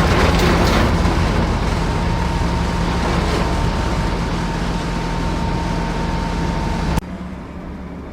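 RC construction machinery running: a steady engine-like hum with a faint high whine over it. About seven seconds in it cuts abruptly to a quieter running sound.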